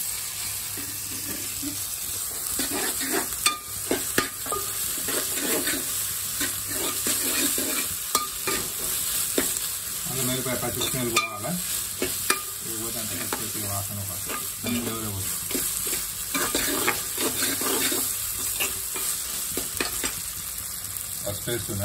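Chopped onions sizzling in hot oil in an aluminium pot while a steel spoon stirs and scrapes them, clicking now and then against the pot.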